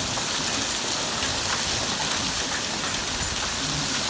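Heavy monsoon rain pouring down steadily, with scattered drops ticking through the even hiss.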